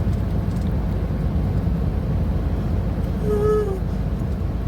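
Steady low road-and-engine rumble of a car on the move, heard from inside the cabin. About three seconds in, a short high vocal sound briefly rises above it.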